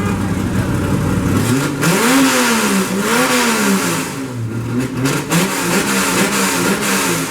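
Ford Focus 2.0 Duratec four-cylinder engine idling, then revved twice, rising and falling in pitch about two and three seconds in, followed by several shorter blips of the throttle. The broken engine mount behind its earlier tin-can rattle has just been replaced.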